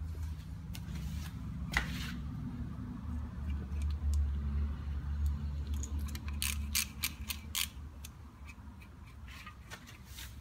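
Socket ratchet clicking while undoing 10 mm bolts on a Toyota Land Cruiser swivel hub housing. There are a few single clicks at first, then a quick run of about five clicks a second around the middle, over a steady low hum.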